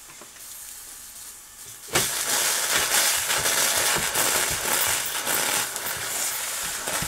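Twin-cylinder modified Mamod MEC1 toy steam engine: a faint hiss of the boiler under steam, then about two seconds in a sudden loud rush of steam hissing and spitting from the engine, with irregular crackles rather than a steady beat.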